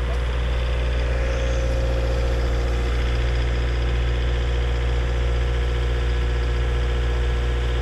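Hitachi tracked excavator's diesel engine running steadily at close range. A low drone carries a steady higher hum.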